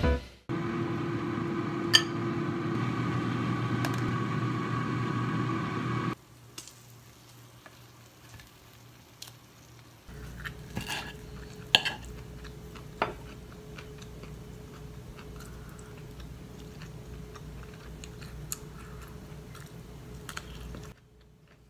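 Plates and cutlery clinking and scraping in a meal being served and eaten, with a few sharp clinks standing out. A steady noise runs for the first six seconds, and a steady low hum sits under the clinks from about ten seconds in.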